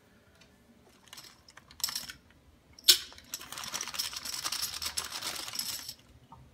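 Empty brown glass beer bottles clinking and knocking as they are handled, with one sharp clink about three seconds in, then a few seconds of steady rustling noise.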